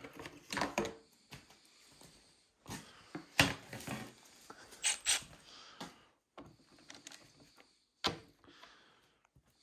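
Scattered knocks, clicks and rustles of things being handled, with the loudest knocks about three and a half and five seconds in. No power tool runs.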